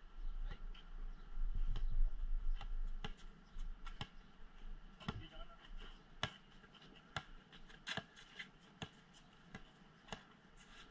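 Basketball bouncing on a concrete court, one sharp bounce roughly every second. For the first two seconds or so, wind buffets the microphone with a low rumble.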